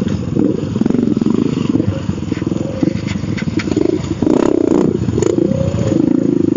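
Several dirt-bike engines running and revving on a trail, the nearest bike's engine loudest, with a stronger burst of revving about four seconds in and a few scattered knocks.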